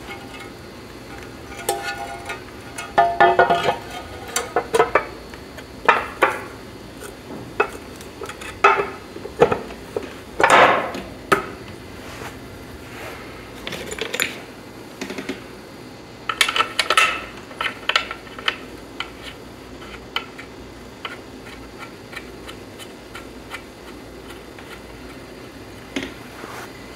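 Irregular metal clinks and knocks as the timing cover and its parts are handled and fitted onto the front of a John Deere 400 engine, a few ringing briefly.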